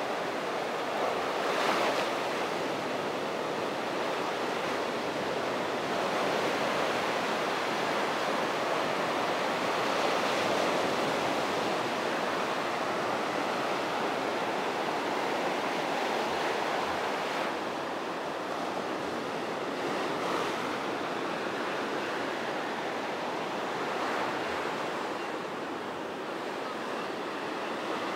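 Small waves breaking and washing up a sandy beach, a steady surf wash that swells and eases.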